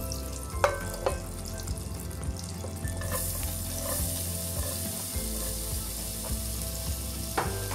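Chopped white onion added to hot oil and melted butter in a pot, frying with a steady sizzle that grows brighter about three seconds in. A few light knocks about a second in and near the end.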